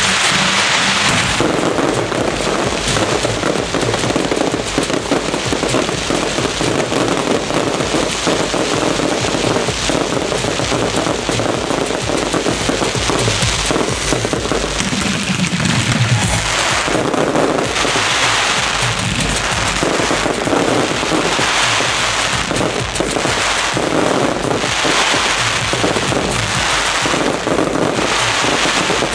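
Fireworks barrage: many shells and ground effects firing at once in a dense, unbroken run of bangs and crackle, surging in waves every second or so in the second half.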